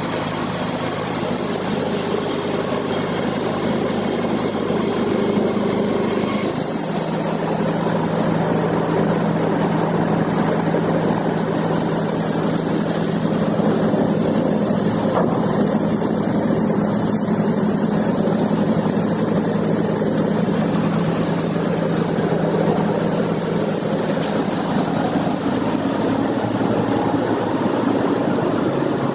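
Sawmill machinery running steadily under power, with a steady low engine hum; the sound changes about six and a half seconds in and then holds steady.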